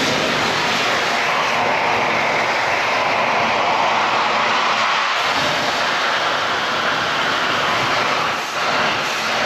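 Cutting torch burning through a seized dozer-blade pin to relieve it: a steady, loud rushing roar, with a brief dip near the end.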